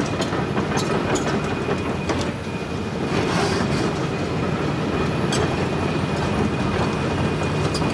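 Hitachi ZX350LC-3 excavator travelling on its steel tracks: the track links rattle and clank steadily over its Isuzu diesel engine running, with a few sharper clanks and a thin steady whine.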